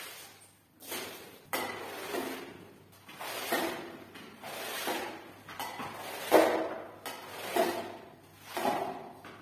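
Long-handled squeegee dragged across a soaked rug in repeated strokes, scraping and swishing soapy water out of the pile, about seven strokes a little over a second apart.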